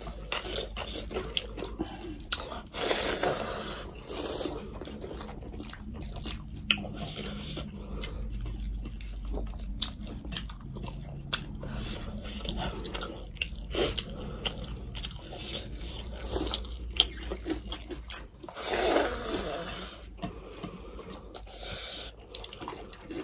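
People chewing and crunching food while eating a rice meal by hand. Many small mouth clicks, with louder crunchy bites about three seconds in and again near nineteen seconds.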